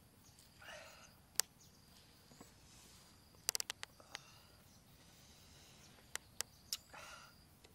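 Faint sharp clicks and crackles, with a couple of short soft rustles, from fingers working apart a green lime wedge, including a quick run of clicks about three and a half seconds in. Underneath, a steady high insect chirr.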